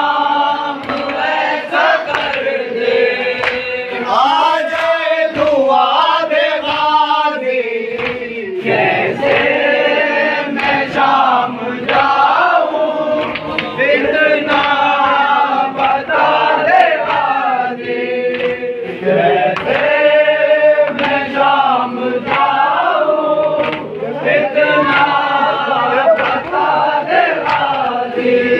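A crowd of men chanting a noha (Shia lament) together in a call-and-response swell, with sharp slaps of hand-on-chest matam scattered through it.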